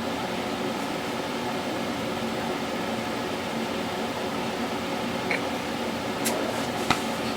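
Steady hum of a household appliance such as a fan or air conditioner, with a few brief clicks in the last couple of seconds, the loudest near the end.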